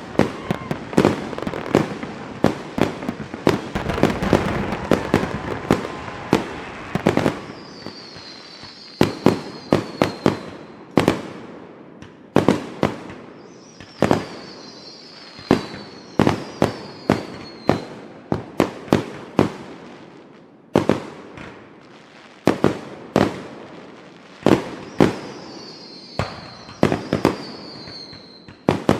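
Fireworks going off: many sharp bangs, some in quick clusters, over a dense crackling rumble for the first several seconds. Later the bangs come more spaced out, and three times a high whistle falls slowly in pitch.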